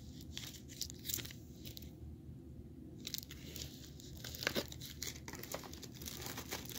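Faint, scattered crinkling and rustling of paper and plastic packaging being handled, with a few sharper crackles.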